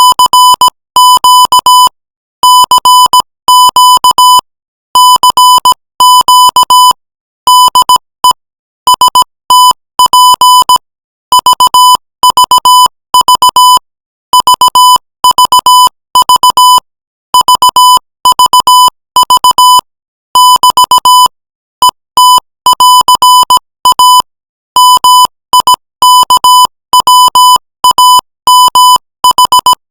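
Morse code sent at 20 words per minute as a single high-pitched beep tone keyed on and off: short and long beeps grouped into letters and words, with brief gaps between them.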